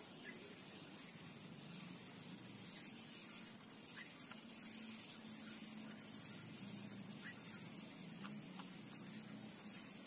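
Garden birds giving a few faint, brief chirps scattered over several seconds, over a steady thin high-pitched whine and a low hum.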